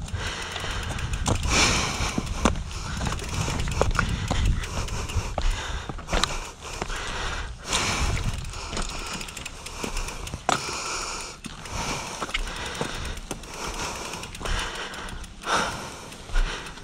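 Heavy breathing from an out-of-breath mountain biker, with rubbing and clicking from the bike and tyres on the rocky dirt trail.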